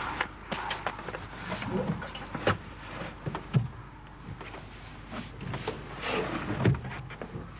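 Scattered knocks and clicks of a man handling and climbing into the open tube-frame cockpit of an MW7 homebuilt light aircraft, with sharp knocks about three and a half seconds in and near the end.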